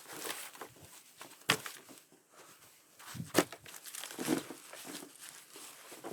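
Crinkling and rustling handling noise, with two sharp clicks, one about a second and a half in and one about three and a half seconds in.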